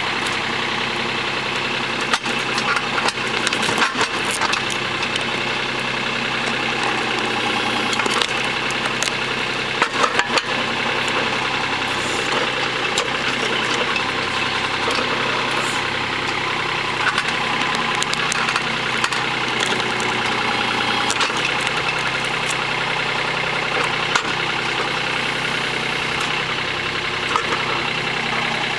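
Compact tractor's diesel engine running steadily while its backhoe digs, with scattered knocks and clunks, the heaviest about two to four seconds in and again about ten seconds in.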